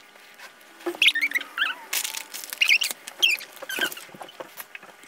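Colored pencil drawing on paper on a wooden table: a run of quick scratchy strokes with small high squeaks, starting about a second in.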